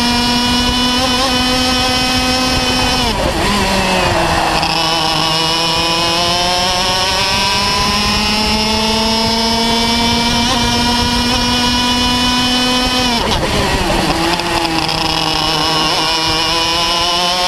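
Parilla two-stroke kart engine at racing speed, heard from on board. The revs are held high, drop sharply twice as the driver lifts for corners, about three seconds in and again near thirteen seconds, and climb steadily in between as the kart accelerates.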